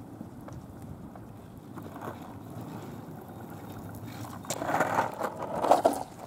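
Skateboard wheels rolling on rough asphalt, a steady rumble that turns louder and rougher, with scraping and clacks, about four and a half seconds in.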